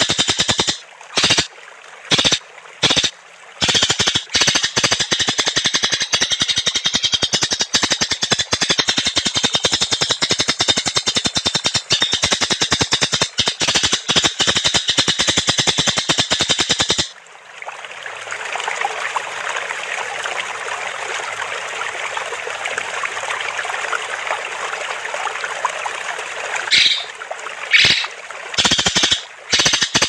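Songbird tutor recording: a very rapid, rattling trill of evenly repeated notes with a few short breaks early on. About halfway through it gives way to a steady hiss like running water, with a few short louder sounds near the end.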